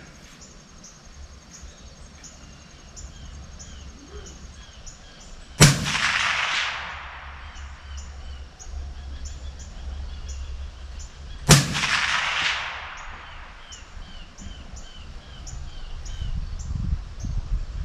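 Two rifle shots from a 20-inch Ruger SFAR in .308 Winchester, about six seconds apart, each followed by a rolling echo that dies away over a second or so. Insects chirp steadily in the background.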